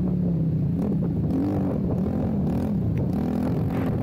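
Suzuki LTR 450 quad's single-cylinder four-stroke engine revving up and down as the throttle is worked while riding, its pitch rising and falling about once a second.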